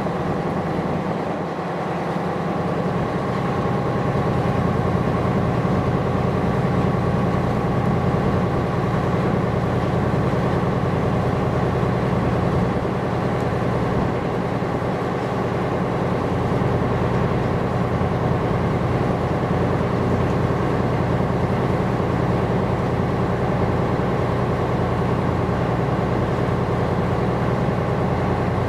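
Ship's diesel engine running with a steady, constant drone and a hum of steady tones, a little louder from about three seconds in.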